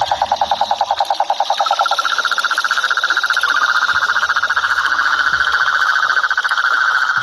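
Cane toads calling: a low, evenly pulsed trill that stops about two seconds in, overlapped by a higher pulsed trill that starts just before it ends and carries on, with another trill joining near the middle.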